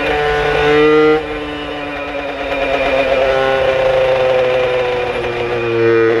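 Puch E50 two-stroke moped engine, tuned with an Italkit cylinder kit and a 21 mm Dellorto carburettor, running under way. Its revs climb, drop sharply about a second in, then build again.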